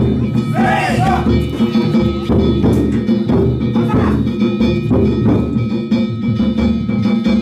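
Danjiri float music: taiko drum and ringing gongs played without a break, with voices calling over it.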